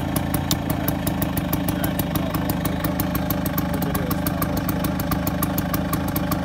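Vespa PX 150's two-stroke single-cylinder engine idling steadily, with a fast, even light ticking over the hum.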